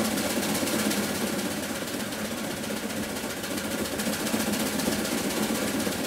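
Reeves 13HP steam traction engine running steadily, belted to a sawmill, with a fast, even exhaust beat and mechanical clatter.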